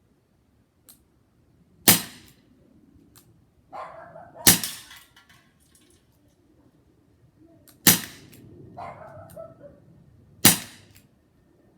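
Crosman SNR 357 CO2 air revolver firing four single shots, each a sharp crack, spaced two and a half to three and a half seconds apart.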